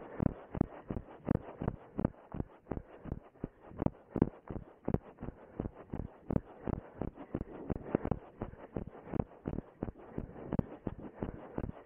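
A runner's footsteps on grass at a steady running pace, one dull thud with each stride, about three a second.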